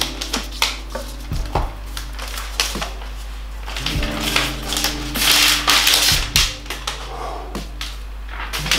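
Packaging being handled: a paper pull tab and clear plastic protective film rustling and crinkling with small clicks, loudest about five to six and a half seconds in. Soft background music with sustained notes plays underneath.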